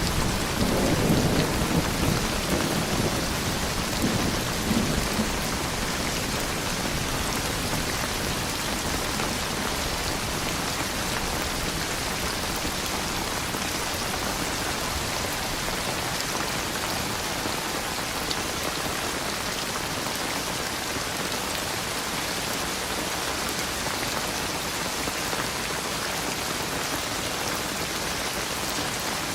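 Steady rain falling, with a low rumble of thunder that fades away over the first few seconds.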